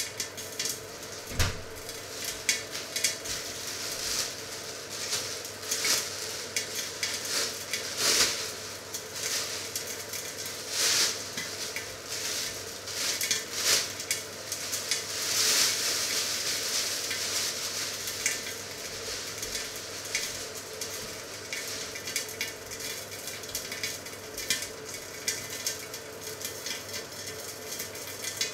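Chicken legs frying in a cast-iron grill pan: a steady sizzle, with fat crackling and spitting at irregular moments.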